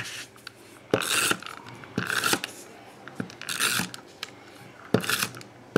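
Tape runner drawn across paper in four short strokes, roughly one a second, laying adhesive to stick paper layers together, with small clicks of paper being handled between strokes.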